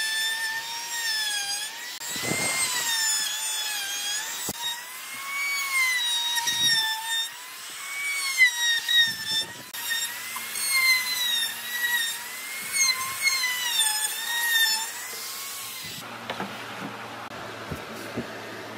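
Handheld trim router running at high speed as its bit rounds over the edges of heart-shaped cutouts in a pine tabletop, its whine dipping and rising in pitch as the load changes. The whine cuts off abruptly about three-quarters of the way through, leaving a low, steady hum with a few light ticks.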